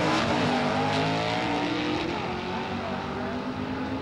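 Two drag-racing cars accelerating hard side by side down the strip. The engine pitch climbs in the first second or so, then the sound steadies and grows fainter as they pull away.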